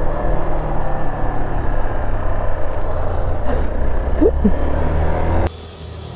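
Single-cylinder motorcycle engine of a Hero XPulse 200 4V running steadily with an even, unchanging note. Near the end it cuts off suddenly to a much quieter low hum.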